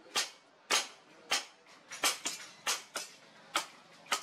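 Hand hammer striking red-hot brake-disc steel on a post anvil: a steady run of sharp blows, roughly one every half second, as the blade is forged.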